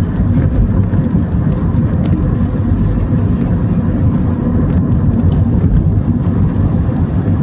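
Steady low rumble of a car driving on a wet road, as heard inside the cabin: engine and tyre noise.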